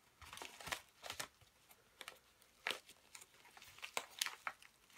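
Paper padded mailer crinkling and tearing as it is worked open by hand, a run of irregular sharp crackles.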